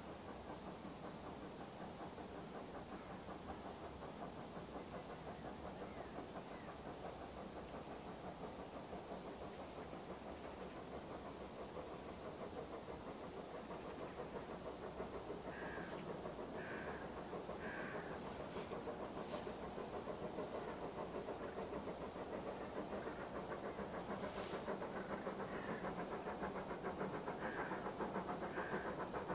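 Distant steam locomotive approaching up the line, the chuffing of its exhaust growing steadily louder as it nears.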